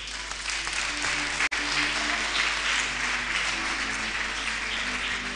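Congregation applauding, with instrumental music playing held notes underneath; the sound drops out for an instant about a second and a half in.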